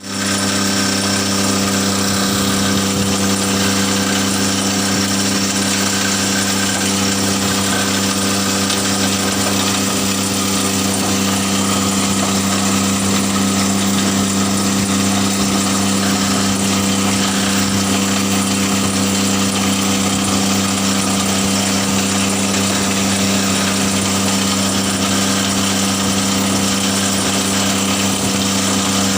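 Hammer mill of a briquette-making machine running steadily, a constant machine hum with a strong low tone and a hiss above it, no change in speed.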